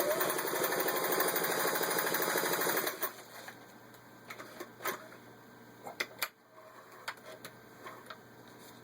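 Singer 503A sewing machine running fast, stitching through six layers of denim with a quick, even rhythm, then stopping suddenly about three seconds in. A few scattered clicks follow.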